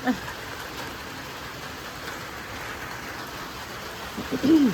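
Steady rain falling and pattering on the ground. A brief vocal sound comes right at the start, and a louder, rising-then-falling one about four seconds in.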